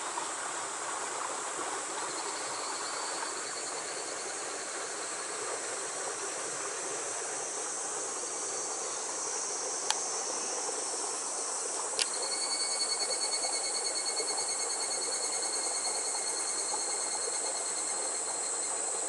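Insects calling in a steady high trill that grows louder and pulsing about two-thirds of the way through, over a steady hiss of running water. Two sharp clicks come near the middle, about two seconds apart.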